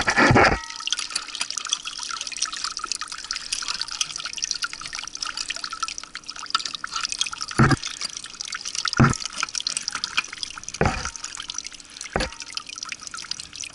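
Water dripping and trickling off the raised water-jet foot of a Suzuki DF20A outboard, with the engine stopped. Four dull knocks come in the second half.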